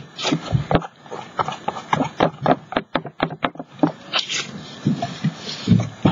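Tissue paper crinkling and rustling as it is handled and pressed onto a glued canvas: a run of quick, irregular crackles, softening into duller, lower sounds in the second half.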